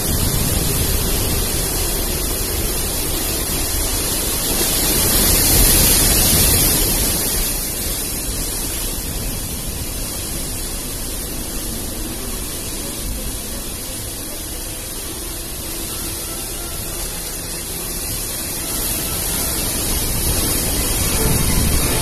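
Gale-force wind and storm surf making a steady, loud rushing noise that swells about five seconds in and then eases.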